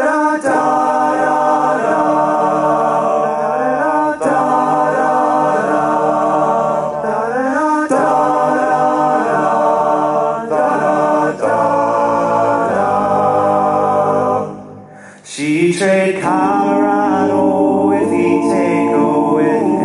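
Male a cappella ensemble singing sustained, wordless chords, with gliding changes between them. There is a short break about three-quarters of the way through, then a new chord swells in.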